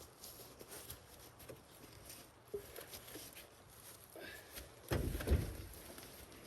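Faint shuffling footsteps and handling noise as a heavy wet cedar slab is moved, with a deep thump and rumble about five seconds in as it is set down.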